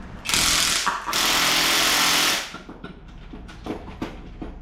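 Impact wrench run in two bursts, a short one and then one of about a second and a half, turning a nut on a strut assembly. Faint clicks and knocks follow.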